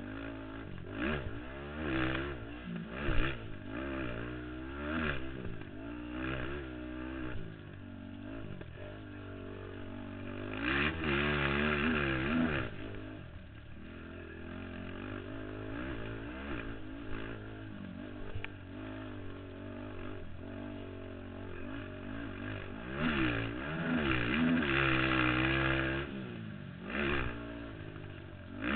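Race ATV engine revving up and falling off again and again as the throttle is worked through the turns and straights of a motocross track. The longest hard pulls come about ten seconds in and again from about twenty-three seconds in.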